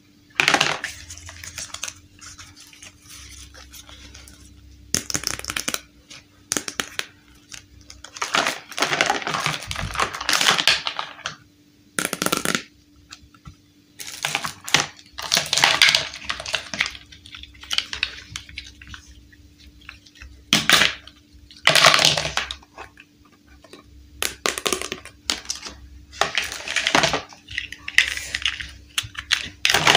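Plastic toy building bricks and parts clattering and clicking as they are picked up, handled and set down, in irregular bursts.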